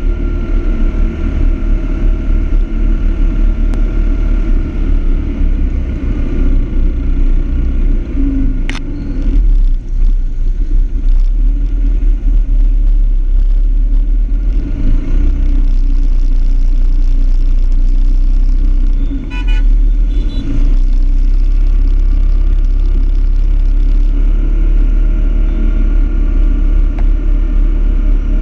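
Motor scooters riding in a group, heard from a camera on a moving scooter: steady engine and road noise under heavy wind rumble on the microphone. A vehicle horn honks briefly about two-thirds of the way through.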